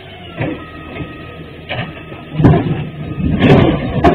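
A burning garbage truck exploding: a series of sudden loud bangs and rumbles over a steady noisy background, the loudest about two and a half and three and a half seconds in, with a sharp crack near the end as the fireball goes up.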